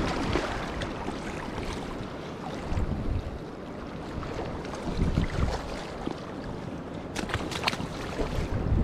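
Steady rush of river water with wind buffeting the microphone, and a few sharp clicks about seven seconds in.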